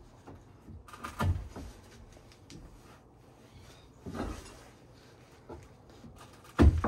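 Steel pry bar levering up screwed-down deck boards: a few short creaks and knocks of wood and metal, about three seconds apart, the loudest near the end. The boards are being forced up because their screws strip or shear instead of backing out.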